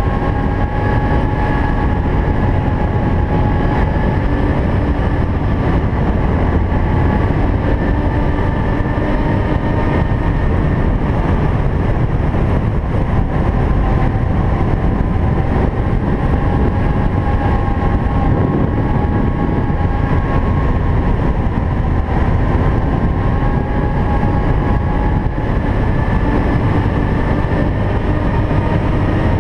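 ATV (quad) engine running at a steady cruising pace, its whine drifting slightly up and down in pitch, over a constant low rush of wind and tyres on gravel.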